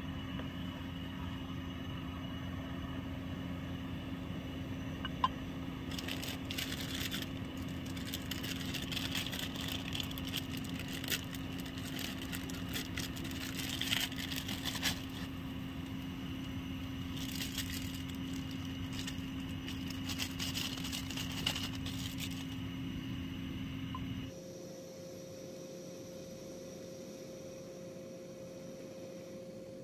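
Portable gas camping stove burner running steadily under a cooking pot, with scattered clicks and rustles of handling around the pot in the middle stretch. The sound drops abruptly to a quieter, steady hum about six seconds before the end.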